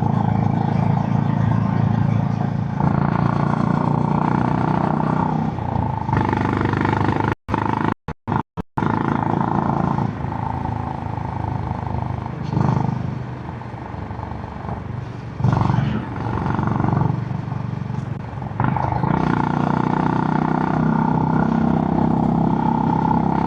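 Honda GB350 (H'ness CB350) single-cylinder engine running through its stock exhaust while riding, getting quieter for a couple of stretches in the middle as the throttle eases, then picking up again. The sound cuts out several times in quick succession about eight seconds in.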